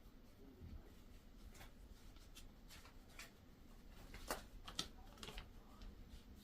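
Faint rustling and light clicks from handling a vinyl record and its packaging, with two sharper clicks a little after four seconds in.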